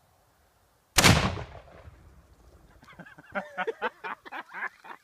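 A single loud blast as a Tannerite exploding target packed in an apple is set off by a rifle shot, about a second in, with a tail that dies away over about a second. Voices follow about two seconds later.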